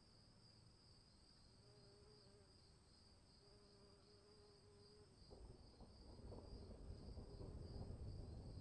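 Faint, steady, high-pitched insect chirring with a pulsing trill. About five seconds in, a low rumble of distant thunder swells in and grows louder.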